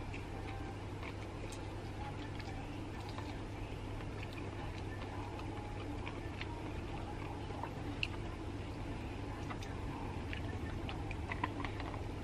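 Soft, scattered clicks and smacks of someone eating rice by hand: chewing, mouth smacks and fingers working the rice on a banana leaf, with a couple of sharper clicks about eight and eleven and a half seconds in. A steady low hum runs underneath.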